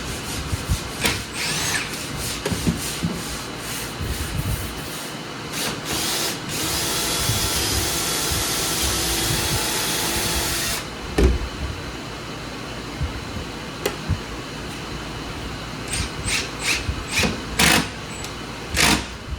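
Power sander running steadily on the boat's fiberglass for about four seconds in the middle. Before and after it come scattered short scrapes, knocks and clicks of hand work.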